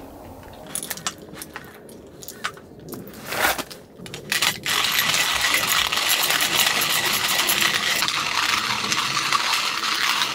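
Coffee beans rattling into a hand-cranked coffee grinder. About four and a half seconds in, the grinder is cranked and gives a steady crunching as it grinds the beans.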